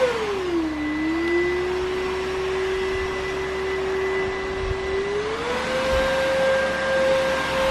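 Cordless stick vacuum cleaner running with a steady motor whine. The pitch drops in the first second, holds lower, then rises back to its first pitch about five and a half seconds in.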